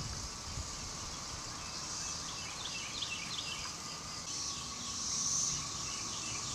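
Cicadas droning steadily in the trees, swelling about five seconds in, with a few bird chirps.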